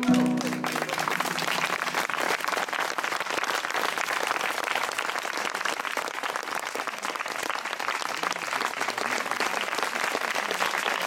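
A pedal harp's final low notes ring briefly in the first second as an audience breaks into applause. The clapping then carries on steadily.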